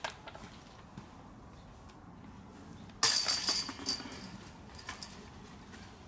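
Disc golf putt hitting the chains of a metal basket: a sudden bright jangle about three seconds in that dies away over a second, followed by a few lighter clinks.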